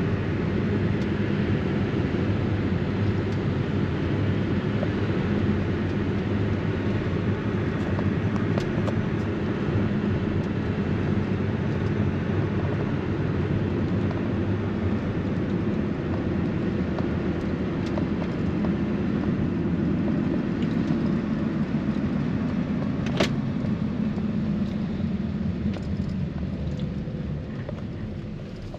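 A vehicle driving: a steady engine and tyre rumble that fades over the last few seconds, with a single sharp click late on.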